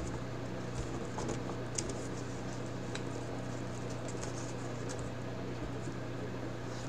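2023 Bowman Draft baseball cards being handled and flipped through by hand: soft, scattered clicks and rustles of card stock over a steady low hum.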